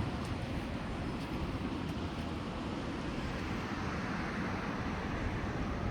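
Steady wind rumbling on the microphone, mixed with the wash of ocean surf.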